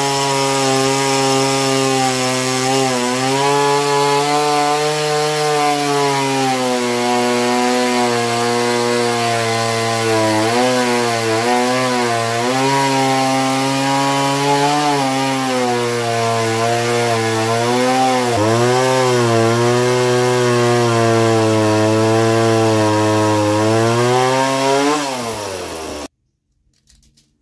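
Engine of a Norwood HD36 portable band sawmill running under load as the band blade saws through a white pine cant. Its pitch sags and recovers several times as the engine bogs in the cut. Near the end it slows, and the sound stops abruptly.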